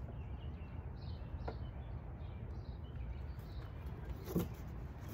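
Steady low outdoor rumble with small birds chirping, and a single sharp knock about four seconds in as a cardboard box is handled.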